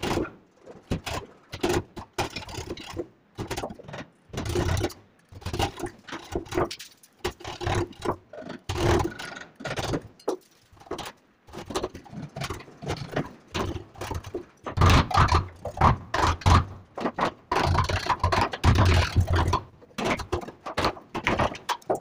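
Wood chisel cutting and scraping a lock mortise into the edge of a wooden door: irregular scrapes and knocks, with a run of louder knocks in the second half.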